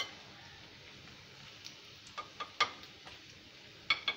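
Metal kitchen utensils clinking against an iron wok and a plate while fried battered egg pieces are lifted out of the oil: a handful of short, separate clicks, two close together near the end.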